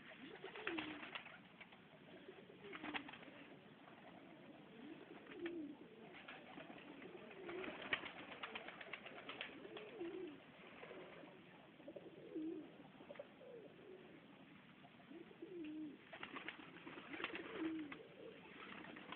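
Domestic pigeons (Serbian highflyers) cooing, a low rising-and-falling coo repeated every second or two, with scattered short clicks and rustles among them.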